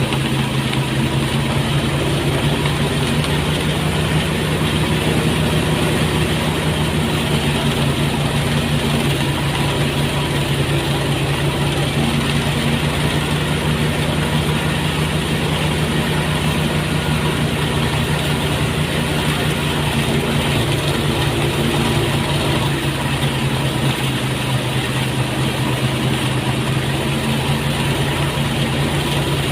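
Motorised rice threshing machine running steadily, its engine holding a constant speed.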